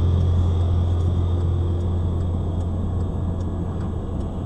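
Steady low drone of a car's engine and tyres on slushy road, heard from inside the cabin while driving slowly in traffic, easing off a little towards the end. Faint, evenly spaced ticks sit above it.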